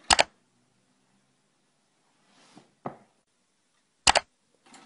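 Sharp double clicks, one right at the start and another about four seconds in, with a fainter soft rustle and a single click a little before three seconds.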